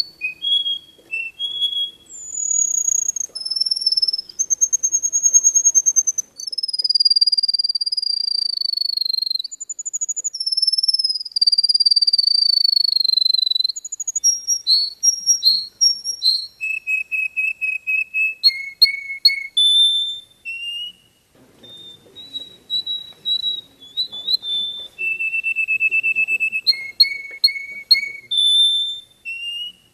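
Yellow finch singing a long, varied song: drawn-out high whistles that slide slowly downward, then quicker runs of short notes and rapid trills from about halfway on.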